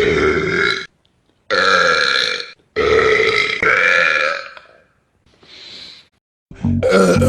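A man burping repeatedly: a string of long, loud burps of about a second each, a faint short one past the middle, and another loud one starting near the end.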